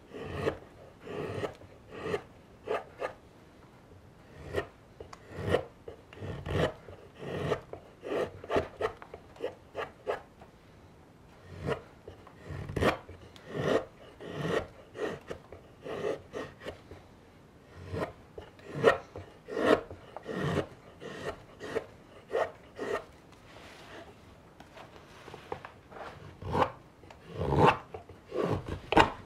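Straight carving knife shaving raw (green) birch, cutting facets on the outside of a wooden kuksa cup. The sound is a run of short slicing scrapes, about one or two a second, in bursts with brief pauses.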